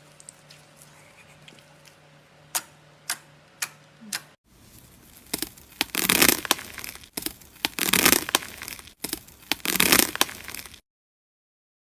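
Slime being squeezed and worked by hand, crackling and popping in three loud swells about two seconds apart, after a few sharp pops in the first seconds. The sound cuts off abruptly near the end.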